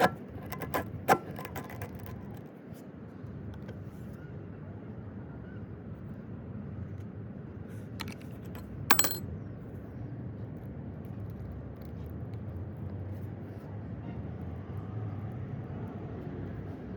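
Metal hand tools clinking: a few sharp clicks in the first second or so, then two more about eight and nine seconds in, the last one ringing, over a steady low background noise.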